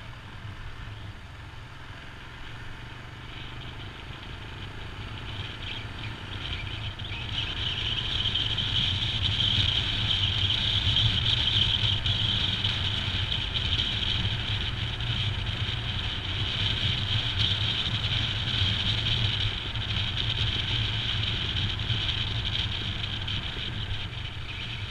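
Royal Enfield Himalayan's single-cylinder engine running steadily at riding speed, with road and wind noise. A high hiss swells and the overall sound grows louder from about a quarter of the way in.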